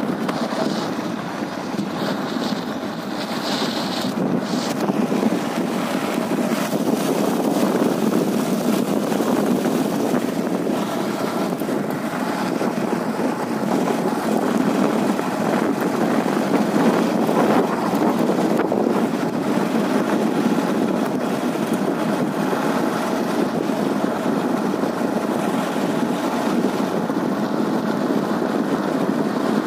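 A vehicle driving steadily along an unpaved earth road: engine and tyre noise with wind buffeting the microphone.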